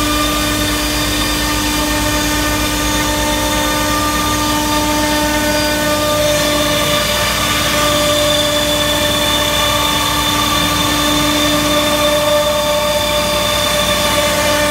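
AXYZ 5018 CNC router's spindle running with a steady high whine as it cuts a melamine-faced particleboard panel, its pitch shifting slightly about six seconds in, over a low steady hum.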